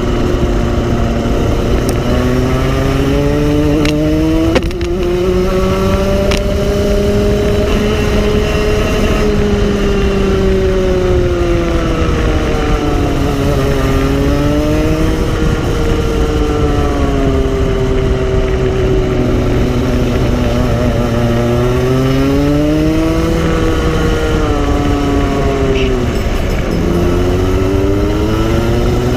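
Go-kart engine heard from on board, running hard with its pitch climbing as it accelerates and falling as it slows for corners, over and over through the lap.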